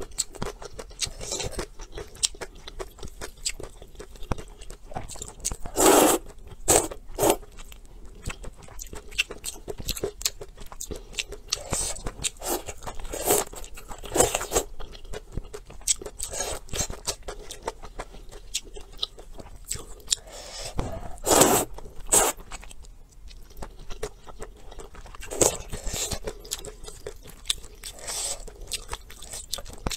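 Close-miked eating: a person slurping soupy noodles and chewing, with short, loud slurps every few seconds between quieter chewing.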